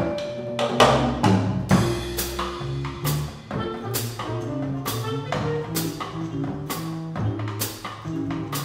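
Small jazz combo playing: a drum kit keeps time with evenly spaced cymbal strokes under an upright bass line, while a vibraphone plays ringing mallet notes.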